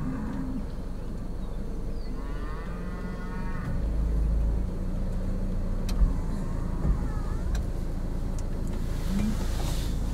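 Cattle mooing in alarm, with a long drawn-out call about two seconds in and others later, over a steady low rumble. The cows are agitated.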